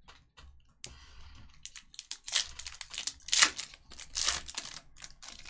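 Foil trading-card pack being torn open, its wrapper crinkling in a run of sharp crackles that are loudest about three to four seconds in. A few light clicks come before it as the pack is handled.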